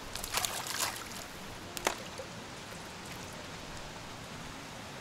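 Steady rush of running water, with a few small splashes in the first second and one more about two seconds in.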